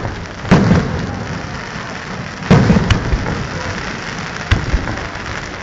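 Aerial fireworks: two deep shell bursts about two seconds apart, followed by sharper single bangs, over a constant dense crackle from crackling stars.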